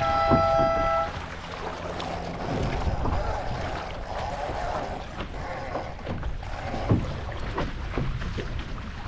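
A horn sounds one steady blast of about a second, a start-sequence signal before a dinghy race. Then wind and water rush past a small sailing dinghy's hull, with splashes and a sharp knock about seven seconds in.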